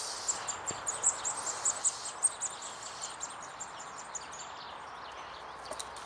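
Outdoor ambience with small birds chirping in quick, high notes over a steady background hiss. The chirping is busiest in the first half and thins out after that.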